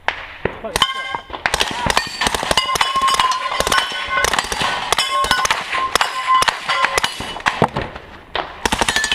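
Two suppressed Mini Uzi submachine guns firing rapid bursts in quick succession, starting about a second in, with steel targets clanging and ringing as they are hit.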